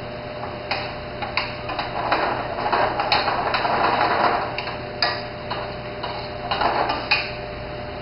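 Kitchen utensils clicking against cookware a handful of times, with spells of stirring and scraping noise in between.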